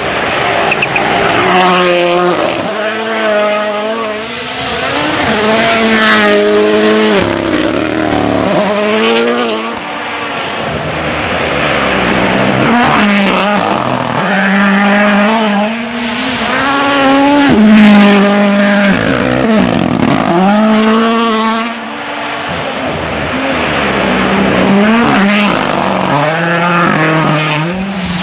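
Turbocharged four-cylinder rally cars at full throttle. The engine pitch climbs and drops again and again through gear changes and lifts as the cars pass at speed.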